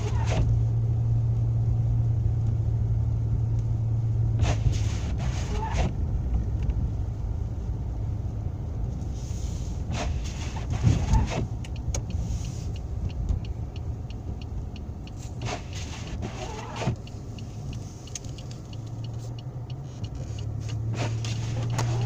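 Car driving on a snow-covered, unplowed road, heard from inside the cabin: a steady low engine and road hum that eases off for a stretch in the middle, with a short cluster of knocks and rattles about every five seconds.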